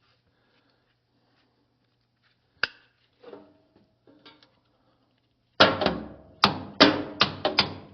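Hammer blows on steel: one sharp knock near the middle, then a quick run of about eight loud, ringing metal strikes near the end, hammering to shock a very tight part loose.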